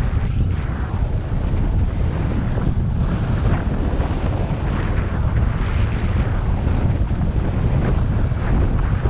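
Airflow buffeting the microphone of a camera mounted on a hang glider in flight: a loud, steady low rush that rises and falls slightly in gusts.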